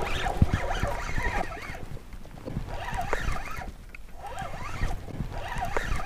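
Knocks and rubbing from handling a spinning rod and reel close to the microphone, with animal calls in short rising-and-falling chirps coming in three groups behind it.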